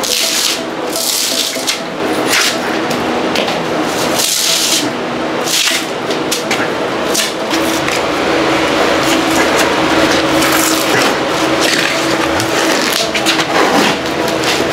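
Floor scraper blade scraping and tearing vinyl cushion flooring up off wooden floorboards, in long rasping strokes, the loudest about a second in and again about four seconds in, with shorter strokes later. A steady hum runs underneath.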